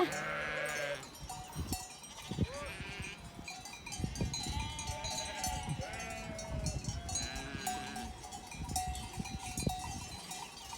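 A large flock of sheep bleating, many overlapping calls at different pitches.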